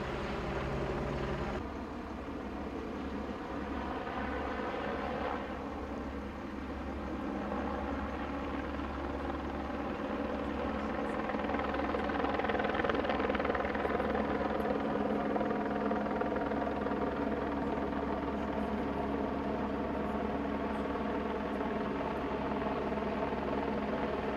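Police helicopter flying low overhead: a steady rotor and turbine drone that grows louder toward the middle and stays loud.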